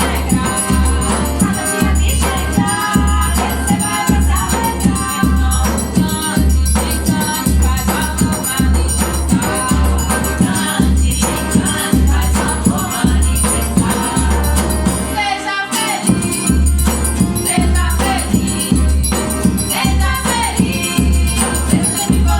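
Forró band playing: sanfona (button accordion) melody over a steady zabumba bass-drum beat, with triangle ringing and acoustic guitar. The drum drops out for a moment about two-thirds of the way through.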